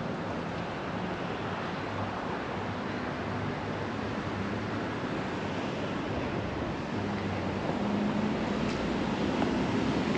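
Steady city street noise: passing traffic with a low engine hum, growing louder about eight seconds in.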